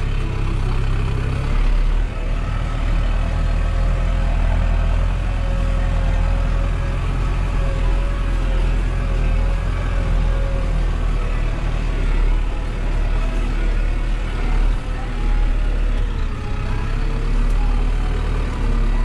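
Diesel engine of a farm tractor or loader running steadily under load. A wavering whine rises over it from about three seconds in and comes back near the end.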